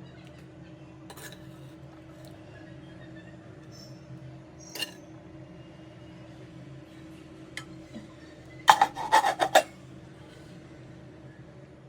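Kitchen utensils clinking against cookware: one sharp clink about five seconds in, then a quick run of ringing clinks near nine seconds, over a steady low hum.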